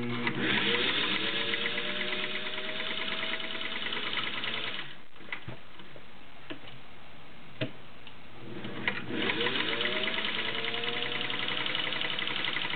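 Singer 301A straight-stitch sewing machine stitching through two layers of cotton: it speeds up at the start, runs steadily for about four seconds, stops for a few seconds with a few clicks while the fabric is repositioned, then speeds up and sews again for about four seconds.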